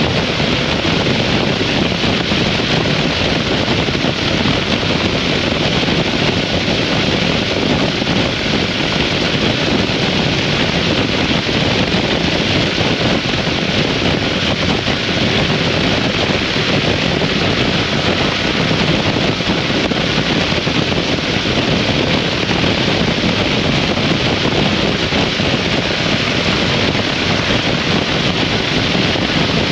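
2003 Harley-Davidson V-Rod riding at a steady speed: a constant rush of wind over the microphone, with engine and road noise underneath and no change in pace.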